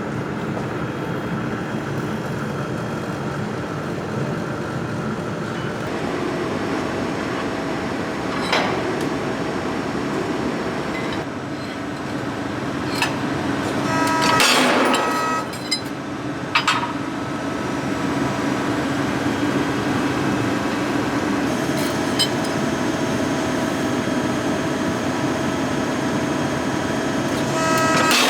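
Hydraulic ironworker running with a steady hum, with a few sharp metallic clanks as it punches holes in steel; the loudest comes about halfway through.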